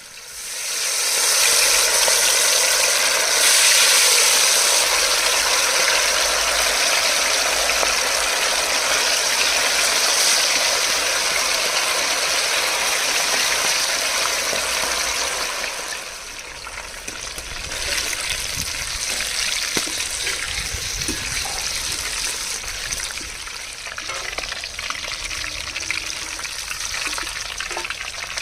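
Marinated chicken pieces deep-frying in hot oil: a loud, steady sizzle that swells up about a second in as the pieces go in, then eases a little about halfway through, with a few scattered pops.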